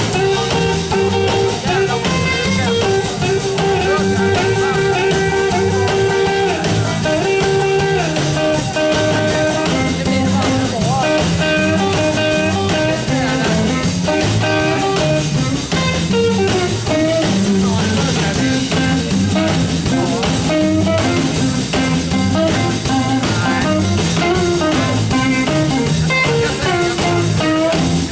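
Live blues band playing an instrumental passage: electric guitar leading over upright bass and a drum kit.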